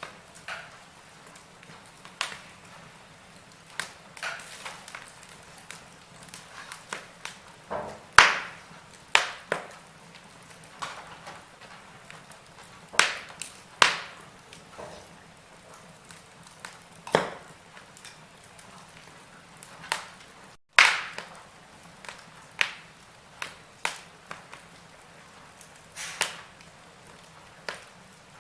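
Wood fire crackling in a fireplace: irregular sharp pops and snaps over a faint hiss, a few of them much louder than the rest.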